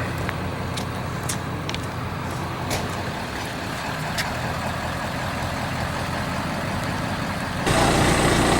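A heavy engine running steadily, with a few faint ticks over it; it gets louder near the end.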